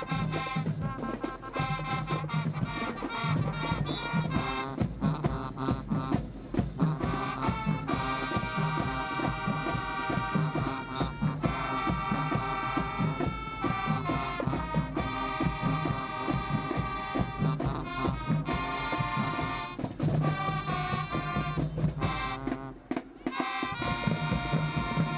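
High school marching band playing a brass tune, with held chords over quick percussion strokes; the band briefly drops out about three-quarters of the way through, then comes back in.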